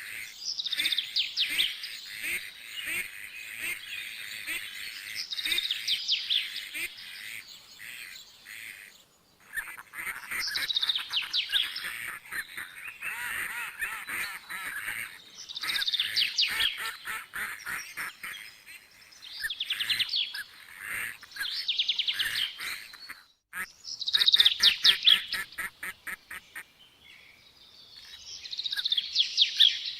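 Many birds calling and chattering at once, in dense bursts of a few seconds separated by brief lulls.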